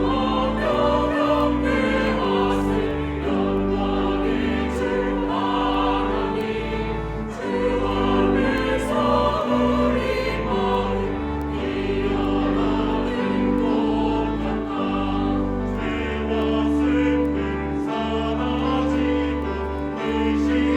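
Church choir singing a hymn in full harmony with instrumental accompaniment, sustained chords over a stepping bass line; the deepest bass drops away about three-quarters of the way through.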